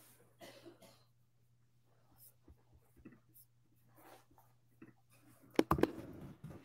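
Faint room sound with scattered small handling noises and a steady low hum that cuts out about five and a half seconds in, followed at once by a quick cluster of sharp clicks or knocks, the loudest sound.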